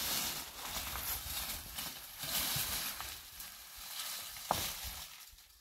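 Uneven outdoor hiss and rustling that swells and fades, with one sharp click about four and a half seconds in.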